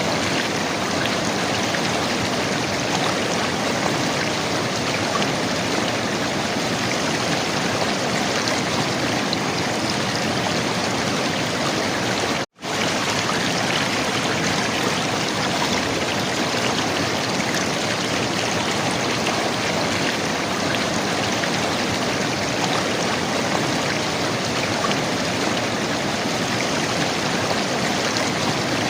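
River water flowing and gurgling, a steady rush. The sound drops out completely for a split second about halfway through, then resumes unchanged.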